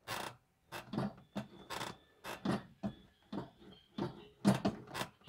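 Accelerator pedal, throttle cable and linkage on a FiTech Go EFI 4 throttle body, worked by hand with the engine off: a string of short, irregular creaks, rubs and clicks as the throttle is opened and let back.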